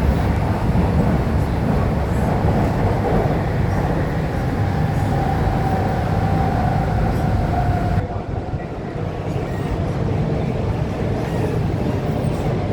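An MTR K-Train electric multiple unit running along the line, with a steady, loud rumble of wheels on the rails and a faint whine held for a few seconds in the middle. About eight seconds in, the sound turns a little quieter and duller.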